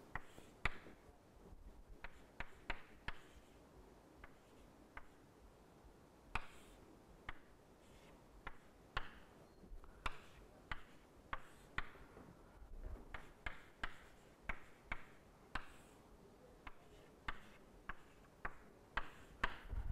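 Chalk tapping and scratching on a chalkboard as matrix entries are written out: faint, irregular sharp taps in small clusters, with light scratchy strokes between them.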